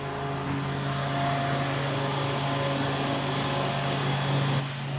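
Woodworking machinery running in a workshop: a steady motor hum with a high whine, and a louder whirring over it that stops near the end.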